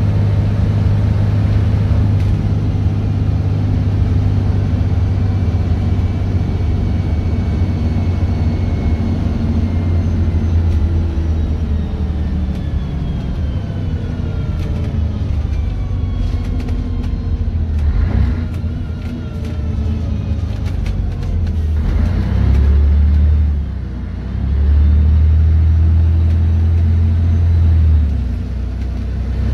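Scania N113 bus's rear-mounted 11-litre six-cylinder diesel and transmission running as it drives, heard from inside the passenger saloon. A whine slowly falls in pitch midway, with some light rattles, and the engine note dips and rises twice in the last few seconds.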